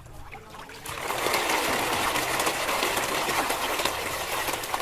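A crowd of koi splashing and thrashing at the water surface while feeding: a dense spattering of many small splashes that starts up about a second in and keeps on steadily.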